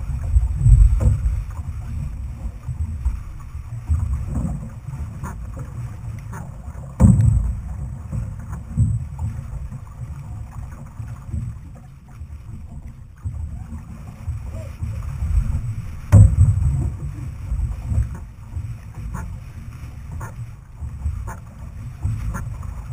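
Wind buffeting the microphone of a canoe-mounted camera as an outrigger canoe is paddled along, a gusting low rumble with water swishing beneath. Two sharp knocks stand out, about seven seconds in and again near sixteen seconds.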